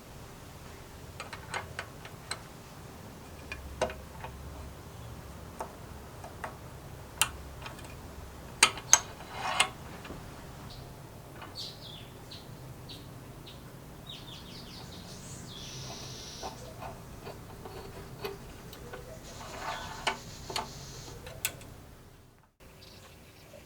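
Scattered light clicks and knocks of tools and small parts being handled in a workshop, with two short hisses partway through.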